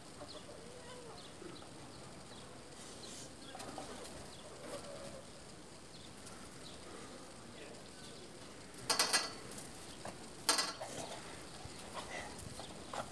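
Quiet background with two short, loud rustling scuffles about nine and ten and a half seconds in, as a Dogo Argentino puppy and a kitten tussle on a fabric swing seat.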